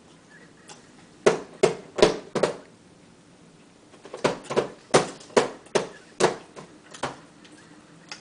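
A run of sharp knocks, four in quick succession about a second in, then about eight more at roughly two or three a second after a short pause.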